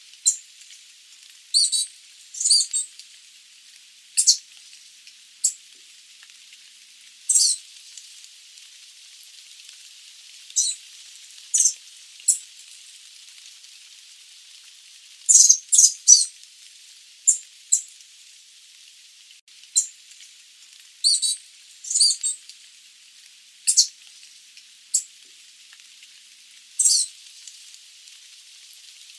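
Sooty babblers giving short, high-pitched calls, singly or in quick clusters every second or two, over a steady hiss.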